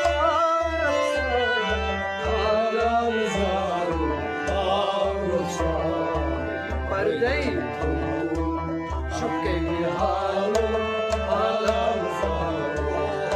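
A man singing a Kashmiri song to harmonium accompaniment, with a hand drum keeping a steady beat underneath.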